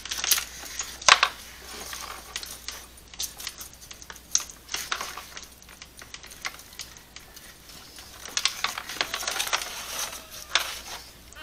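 Scattered clicks, knocks and light metallic clinks of a side-mounted case being unfastened and lifted off a hang glider cart, with one sharper knock about a second in and busier handling near the end.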